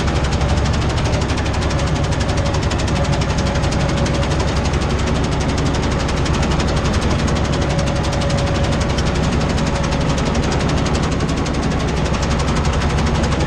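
Tractor engine running steadily under load, heard from inside the cab, with a fast, even knocking pulse.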